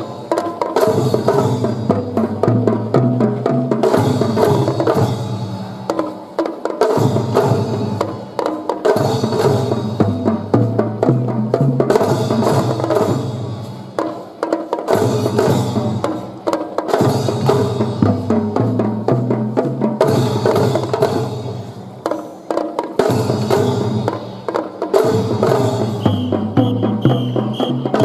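Children's kindergarten drum-and-fife band playing: drum beats under a melody phrase that repeats every few seconds.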